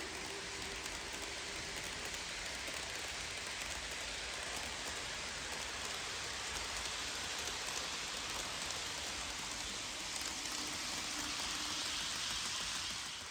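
HO scale model trains running past on parallel tracks: a steady hiss of small metal wheels rolling on the rails with a faint motor hum. It grows louder near the end as the cars pass close by.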